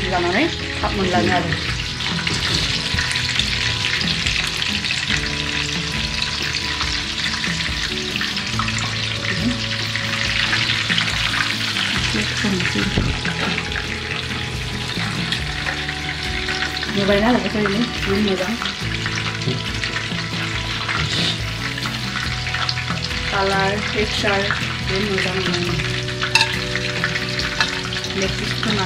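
Breaded chicken pieces deep-frying in hot oil in a pot, a steady sizzling.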